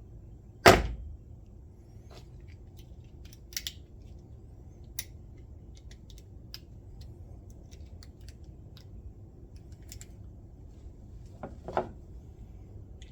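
Hand tools being handled: one sharp knock about a second in, then scattered light clicks and taps, with a double knock near the end.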